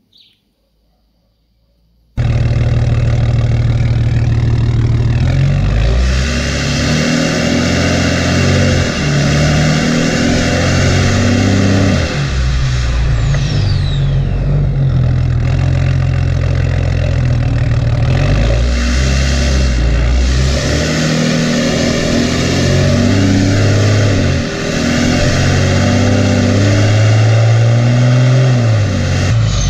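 BMW F30 330d's 3.0-litre straight-six turbodiesel running through a straight-piped exhaust while the car is driven, its revs climbing and dropping back in steps. It starts abruptly about two seconds in, over a steady rush of wind and road noise.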